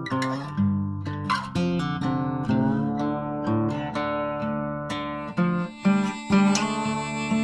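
Acoustic guitar music: plucked and strummed chords in an instrumental passage, with no singing.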